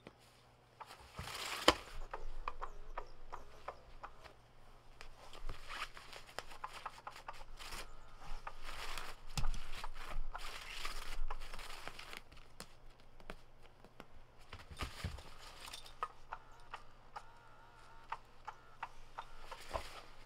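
A cat pawing and clawing at the fabric cover of a 'Catch Me If You Can 2' cat toy, its feather wand moving under the cover: irregular bursts of rustling and scratching, with sharp clicks.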